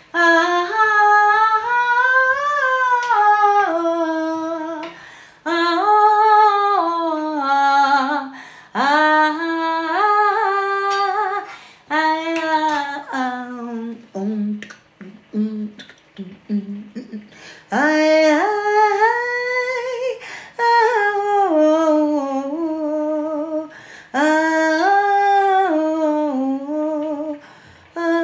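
A woman singing a wordless, Indian-style melody in phrases a few seconds long, the pitch gliding up and down, with a pause of a few seconds about halfway through.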